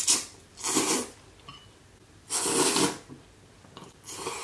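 A person slurping instant noodles off chopsticks: four noisy slurps, the longest about two and a half seconds in.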